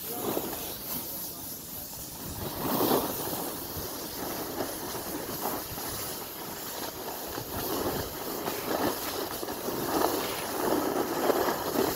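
Snowboards sliding and scraping over hard, icy snow: a continuous hiss from the edges that swells and fades as the riders carve.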